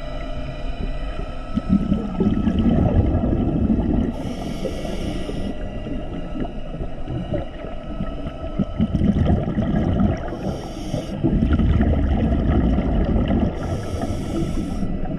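Scuba diver's regulator breathing underwater, heard three times: exhaled bubbles bubbling low, then a short hiss of breath drawn through the demand valve.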